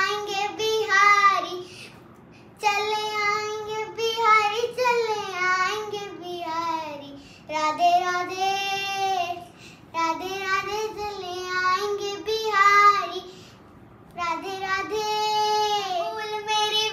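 A young child singing solo with no instrumental accompaniment: long held sung phrases, broken by two short pauses for breath.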